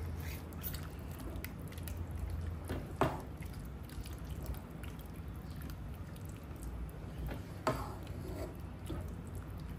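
Creamy sauce cooking in a pan and being stirred, with faint scattered ticks and two sharper utensil clicks, about three seconds in and again near eight seconds. A low steady hum runs underneath.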